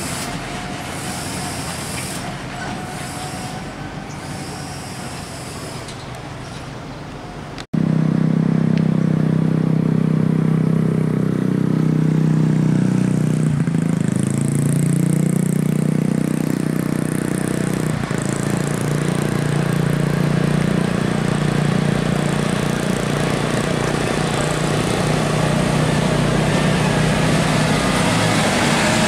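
Motor vehicle noise, steady throughout. After a sudden break about eight seconds in it turns into a louder, steady low drone whose pitch slides up and down for a few seconds in the middle.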